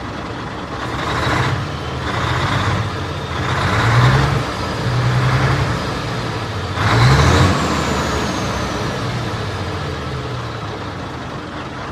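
DAF truck's diesel engine idling roughly and misfiring. It rises and falls in loudness several times in the first seven seconds, then runs steadier. The uneven running is the sign of a misfire (a cylinder not firing), whose cause the driver has not yet found.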